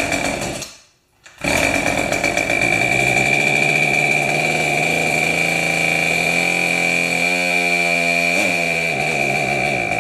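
Poulan 3816 38 cc two-stroke chainsaw engine firing in a short burst, dropping out for a moment, then catching and running steadily, its revs sagging and wavering in the second half. It runs on gas primed straight down the cylinder, so it fires; the owner puts the no-run fault down to a hard, dried-out fuel line.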